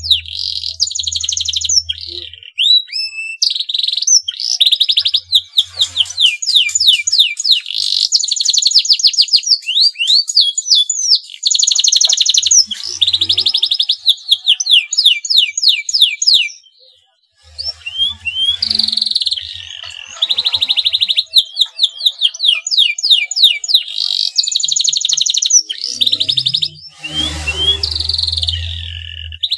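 Male domestic canary in breeding condition singing: long, fast trills of rapid sweeping chirps, repeated series after series with a short pause a little past the middle.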